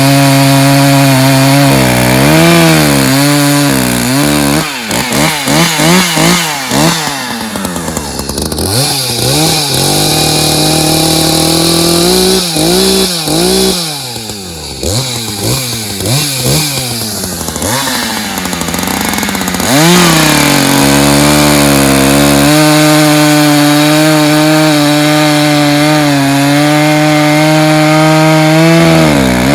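Two-stroke gas chainsaw running at high revs and cutting firewood. Its engine speed repeatedly sags and rises through the middle, as it would under load in the cut, then holds steady near the end.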